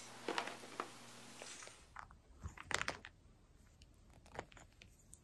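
Metal oil paint tubes clicking and crinkling against each other as a hand rummages through a plastic tub of them, followed by a few soft, separate knocks as tubes are set down on canvas. Faint throughout.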